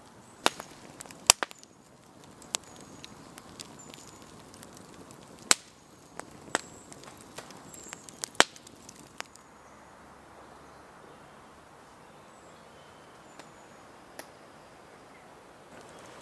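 Wood campfire crackling, with irregular sharp pops over a low hiss. The pops are strongest through the first nine seconds or so, then only an odd faint pop.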